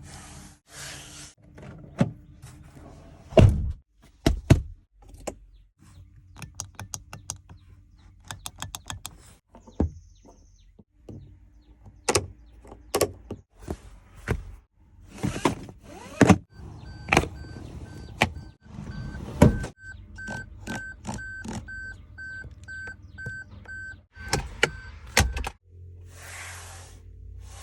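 2022 Maruti Suzuki Baleno being shown off for its build quality: a series of solid thunks as doors and panels are shut, with stretches of whirring like the power windows running. From about halfway in, the car's warning chime beeps steadily about twice a second for several seconds.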